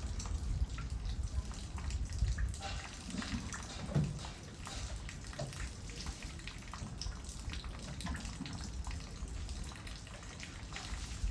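Running water splashing, with scattered drips and small ticks throughout.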